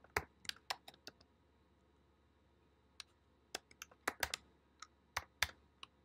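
Faint computer keyboard keystrokes as a password is typed: a quick run of clicks, a pause of about two seconds, then more keys in irregular runs.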